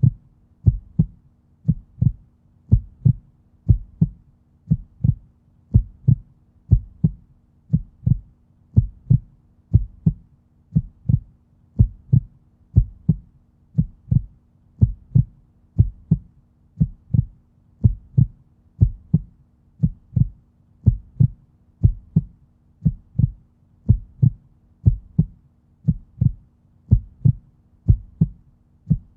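Human heartbeat, a slow steady beat of low thumps at about one beat a second, with a faint steady hum beneath.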